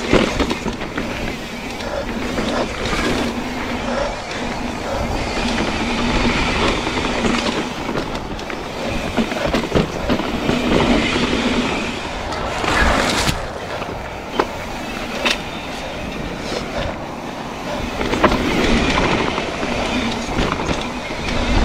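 Yeti SB130 full-suspension mountain bike riding down a dry dirt and granite trail: tyres rolling over dirt and rock while the chain and bike rattle continuously, with a few sharp knocks from hits past the middle.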